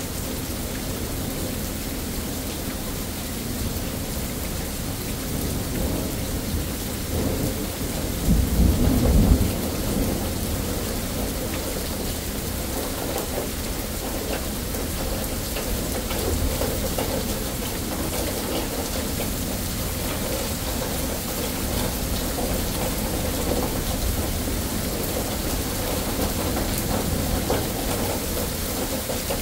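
Steady rain falling, with thunder rumbling; a louder low rumble of thunder swells about eight seconds in and dies away over a couple of seconds.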